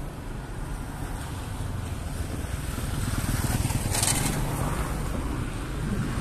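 A small car's engine and tyres approaching along a narrow street, growing louder toward the end, over a low rumble of wind on the microphone. There is a brief hiss about four seconds in.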